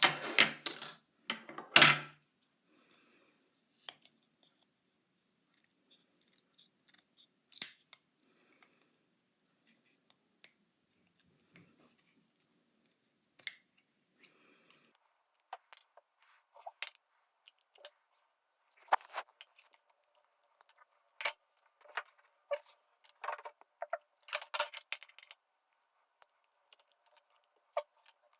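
Sporadic small clicks and clatters of hard objects being handled. A few louder clatters come in the first two seconds, then long quiet gaps, then a busier run of clicks later on.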